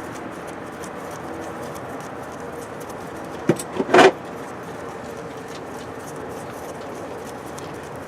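Steady background hiss, with a quick cluster of three metallic clinks from hand tools about three and a half seconds in; the last clink is the loudest.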